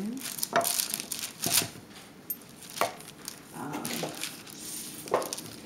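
A small table knife chopping down through soft Play-Doh and knocking on a plastic cutting board: a few sharp, irregular knocks.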